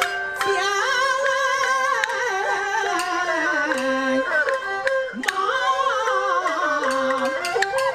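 A Chinese opera aria sung into a handheld microphone, with huqin fiddles bowing the melody alongside. Wooden clappers strike sharp clicks now and then.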